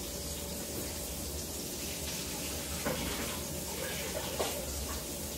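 Steady sizzling hiss of chicken breast frying in oil, with a few faint knocks of kitchen things being handled about three and four and a half seconds in.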